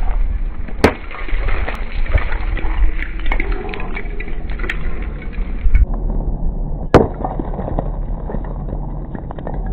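Sledgehammer smashing bricks: two sharp cracks, about a second in and again about seven seconds in, with scattered clicks of flying fragments over a dull, muffled rumble between them.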